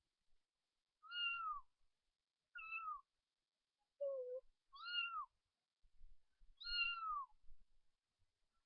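Cat-meow ringtone playing from a phone's speaker: five short, high meows a second or two apart, one of them lower.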